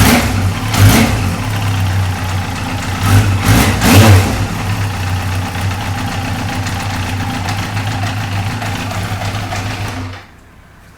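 Yamaha FJ1200's air-cooled inline-four engine idling, cold, with a few short throttle blips in the first four seconds, then settling back to a steady idle. The sound cuts off near the end.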